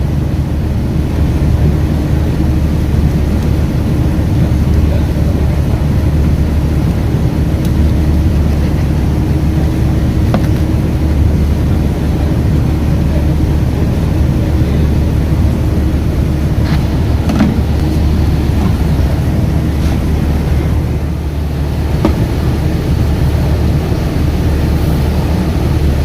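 A steady, loud low engine drone with a constant hum, and a few faint clicks over it.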